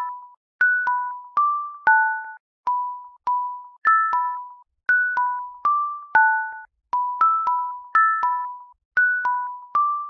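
Background music: a light melody of short struck notes, one or two at a time at about two a second, each ringing briefly and fading.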